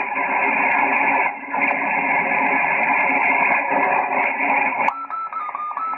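Yaesu FT-847 receiver audio being tuned across the FO-29 satellite's SSB downlink: a dense hiss of noise and garbled, off-tune signals. About five seconds in it drops to fainter noise with short whistling tones that step in pitch as the dial moves.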